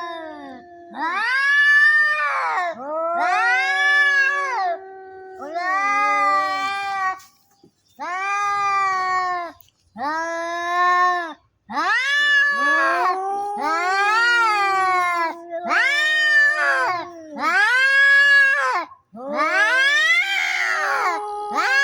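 Two cats yowling at each other in a fight. A low, long-held growling yowl runs under a series of higher wailing calls, about ten of them, each one to two seconds long, rising and then falling in pitch.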